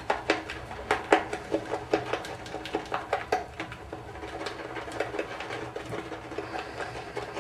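Boar bristle shaving brush whipping lather in a double-walled shaving cup, with quick, irregular clicks and taps of the brush against the cup, several a second, over a faint steady hum.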